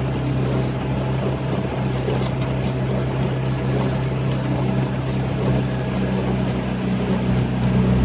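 Outboard motor of a coaching launch running steadily at constant speed, a low even drone, over a haze of water and wind noise.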